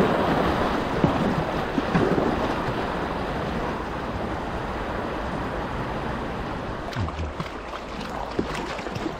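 Rushing water of a river rapid around a kayak, loud at first and easing off as the boat reaches calmer water. Near the end come a few small splashes and knocks, like paddle strokes.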